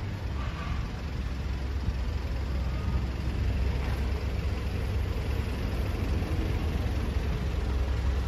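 Honda VFR800F's V4 engine idling steadily with a low, even rumble.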